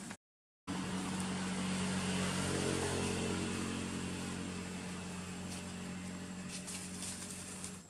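A motor engine running steadily, one even hum that holds its pitch and fades a little toward the end. The sound cuts out completely for about half a second just at the start.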